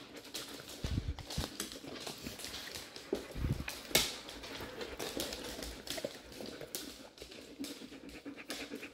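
Dogs' claws clicking and tapping irregularly on a hard floor as they move about, with a couple of soft thumps.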